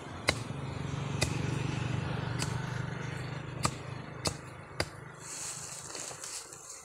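Machete blows chopping into the base of a bamboo shoot: about six sharp strikes, roughly one a second, over a steady low engine hum that fades about five seconds in. Near the end, dry bamboo leaves rustle underfoot.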